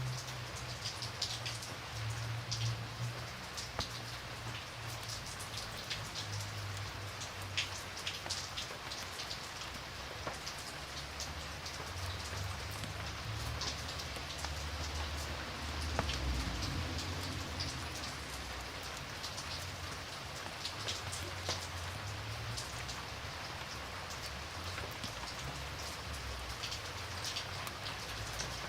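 Steady rain ambience: an even hiss of rainfall with scattered sharp drop clicks and a low rumble underneath.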